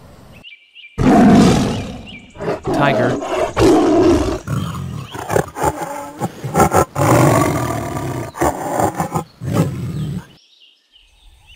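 Tiger roaring in a run of repeated loud calls, the loudest about a second in; the calls stop about a second before the end.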